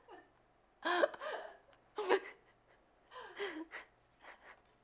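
A woman laughing in about four short, breathy bursts with gasps between them.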